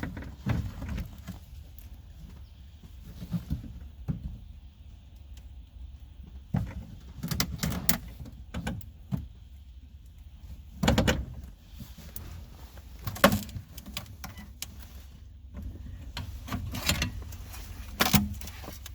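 Irregular knocks, clicks and rattles of a glued-on part in the car's rear quarter panel being worked loose by hand, with sharper knocks about 11, 13 and 18 seconds in.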